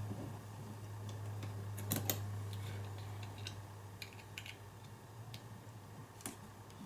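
Scattered light clicks and taps of small metal lock parts being handled as a lock cylinder is taken apart, with a cluster of louder clicks about two seconds in.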